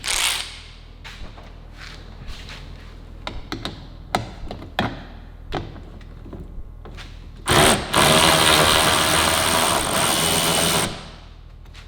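Scattered clicks and knocks of tools being handled, then a power tool runs loudly and steadily for about three and a half seconds, starting about seven and a half seconds in and cutting off sharply.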